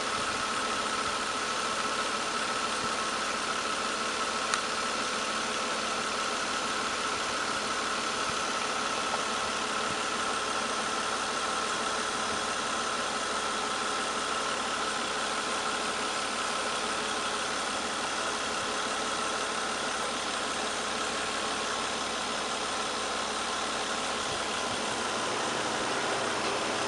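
A 2005 Nissan Altima's 3.5-litre V6 idling steadily, with a steady whine over the engine noise. Near the end a low hum comes in, which fits the A/C compressor kicking on as refrigerant is added.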